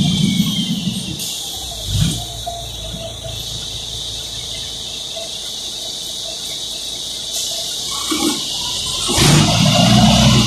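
Inside a city bus: a low engine and running rumble, a knock about two seconds in, then a quieter stretch under a steady hiss, and the engine rumble rising loud again about nine seconds in.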